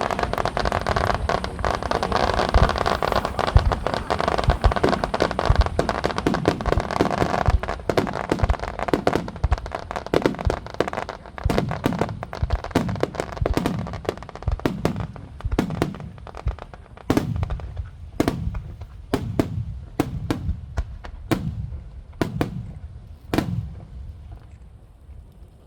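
Aerial fireworks in a starmine barrage: a dense rapid run of bursts and crackle for the first seven or eight seconds, then separate booms, one or two a second, each trailing a low rumble. The booms thin out and grow fainter near the end.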